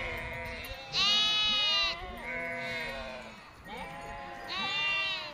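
Sheep and goats bleating, several calls overlapping one another; the loudest comes about a second in and another strong one near the end.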